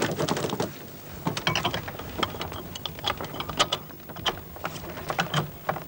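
Irregular clicks, knocks and rattles of metal fittings on a microlight's frame being handled and fastened, several a second.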